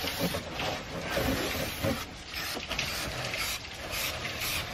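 Aerosol can of spray adhesive hissing as it is sprayed onto a van's bare metal panel, coming and going as the spray is worked along.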